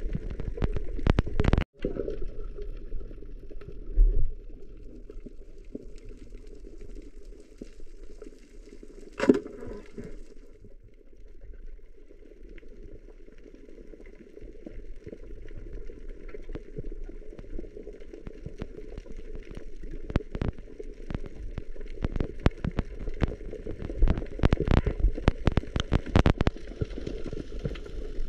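Underwater ambience picked up by a camera in a waterproof housing: a steady muffled hum with scattered sharp clicks and crackles, which grow denser in the last few seconds. One louder knock stands out about nine seconds in.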